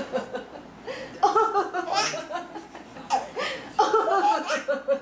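A baby laughing out loud in several bursts, which start about a second in and again near the end. Between them come a few short, rough coughs from the grandmother that set the laughing off.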